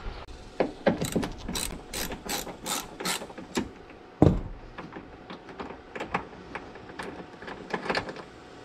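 Ratchet wrench clicking in a quick run of sharp strokes, about three a second, as a fastener at the top corner of a car's rear bumper is backed out. A single loud knock comes about four seconds in, and a few lighter clicks follow near the end.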